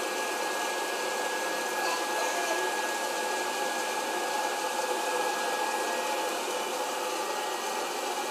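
Hot-air popcorn popper running: its fan blows with a steady rush and a thin high whine while the kernels heat, not yet popping.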